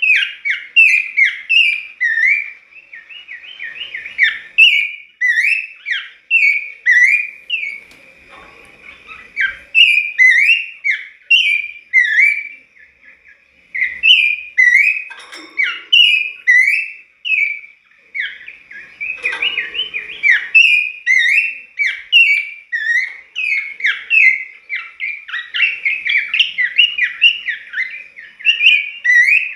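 Pelanduk semak (Horsfield's babbler) singing in full voice: rapid runs of short, clear whistled notes, broken by a few brief pauses.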